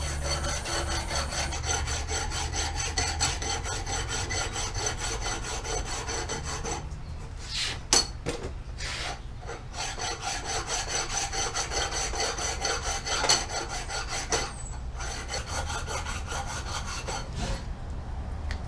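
Carburetor base flange being sanded flat, worked back and forth in steady rhythmic scraping strokes, with a few short pauses and a couple of knocks midway. The sanding is to find out whether the base is warped, which is suspected of causing a vacuum leak.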